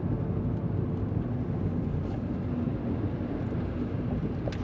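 Steady low rumble of a car being driven, heard from inside the cabin: engine and tyre noise on the road.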